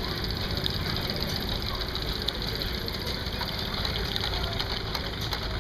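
An engine running steadily at idle, with a low, even knocking beat.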